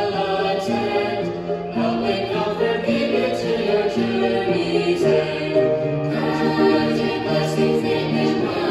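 Mixed ensemble of women's and men's voices singing a hymn in several harmony parts through microphones, the held notes moving together every half second or so.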